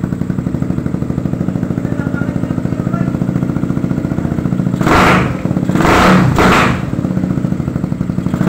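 Motorcycle with an aftermarket Apido chicken pipe exhaust idling with an even, pulsing beat just after starting. About halfway through the throttle is blipped, one rev and then two in quick succession, and another rev begins near the end.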